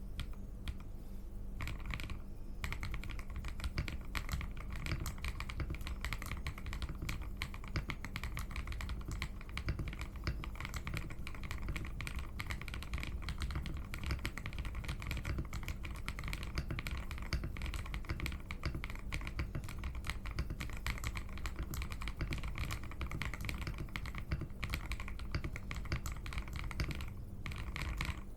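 Fast, continuous typing on a Zouya GMK67 gasket-mount mechanical keyboard with Akko Cream Yellow linear switches, a polycarbonate plate and XDA-profile keycaps: a dense run of key clacks.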